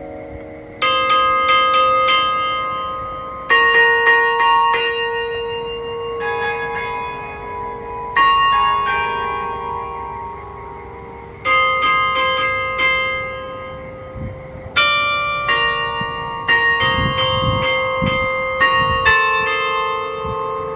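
A set of newly installed, remote-controlled church bells in a cathedral tower ringing. Several bells are struck together in clusters every two to three seconds, each ringing on and fading. The strikes come more often in the last few seconds.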